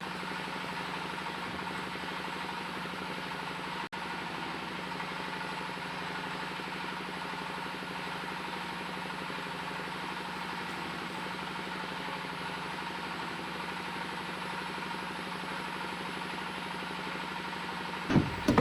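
Steady machinery hum with a constant low tone, like an engine or motor running without change. It drops out for an instant about four seconds in.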